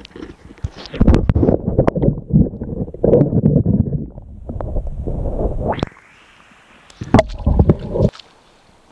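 Water sloshing and gurgling around an action camera dipped into the river, heard muffled through the submerged microphone, in two spells: from about a second in to about six seconds, and again briefly near the end.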